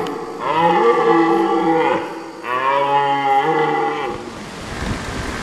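Red deer stag roaring (bellowing) in the autumn rut: two long, wavering roars, each about a second and a half, just after the tail of a previous one. They give way to a rain-like hiss near the end.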